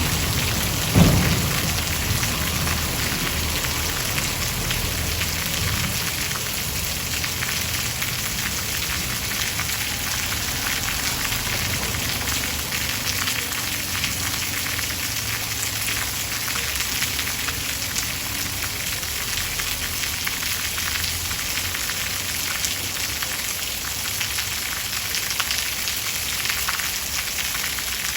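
Steady rain falling, an even hiss of drops throughout. About a second in comes one sudden loud thump over a low rumble that dies away within the first couple of seconds.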